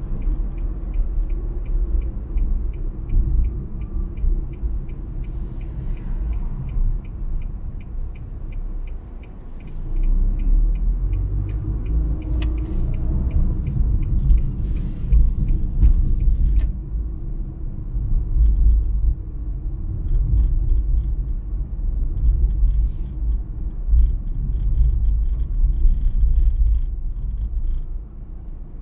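A car driving on the road: a steady low rumble of road and engine noise, dipping for a moment and picking up again about a third of the way in. A faint, regular ticking of about three clicks a second runs through the first half and comes back near the end.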